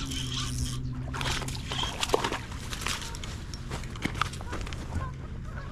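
A hooked largemouth-type bass being reeled in on a spinning rod: a run of small clicks and rustles from the reel and line, with light water sloshing. A steady low hum sits under the first couple of seconds.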